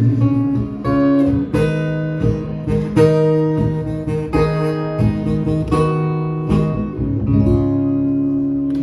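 Acoustic guitar strumming chords to close a song, then a last chord left ringing near the end.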